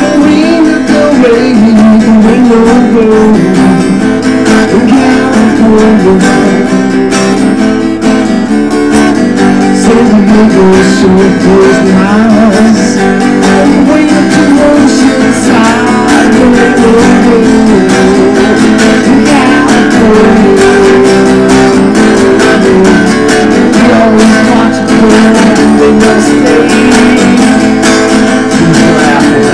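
Acoustic guitar strummed in steady chords.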